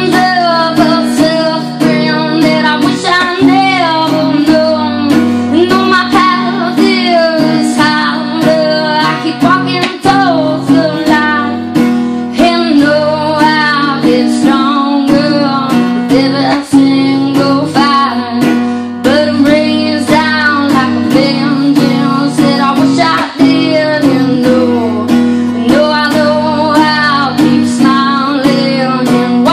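A woman singing with her own acoustic guitar, strumming steady chords under a melody that rises and falls.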